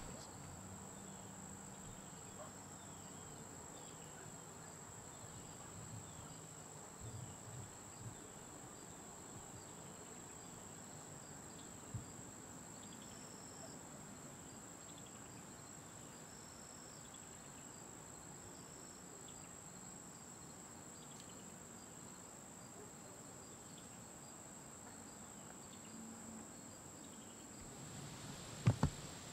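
Crickets and other insects chirping steadily, short repeated chirps over a continuous high-pitched drone. A single sharp click about twelve seconds in.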